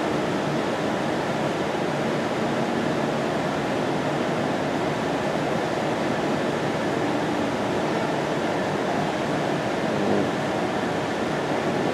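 Steady, even rushing noise of a building's ventilation running, with no other distinct sound standing out.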